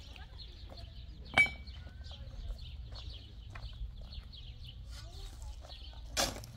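Small birds chirping steadily in quick repeated notes, with a sharp metallic clink about a second and a half in and a short, louder knock near the end.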